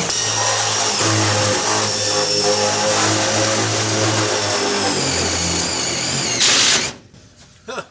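Power drill running for several seconds, drilling or driving screws into sheet-metal body panels, with a high motor whine that dips in pitch near the end. A short loud rush of noise follows, then the drill stops.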